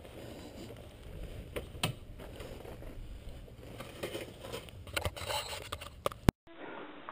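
Dual-sport motorcycle rolling slowly over a loose rocky trail, its engine running low under scraping and crackling of gravel and stones beneath the tyres. About six seconds in, a sharp click and a brief dropout, after which only duller outdoor ambience remains.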